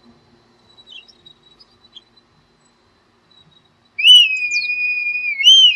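Red kite calling: one long whistled note about four seconds in, rising at first and then held level, ending in a short upward and downward waver.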